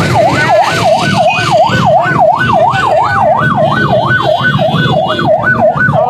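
Electronic siren on a fast yelp, its pitch sweeping up and down about three times a second without a break.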